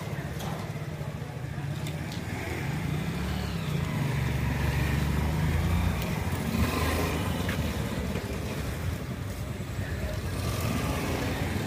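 Small commuter motorcycle engine working under load as it climbs a practice ramp, its note rising and wavering, loudest about halfway through.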